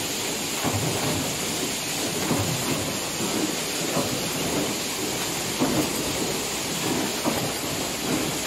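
Mechanical stamping presses running progressive dies for cabinet hinge parts: a steady loud hiss of workshop noise with irregular heavy thuds of press strokes, about one or two a second.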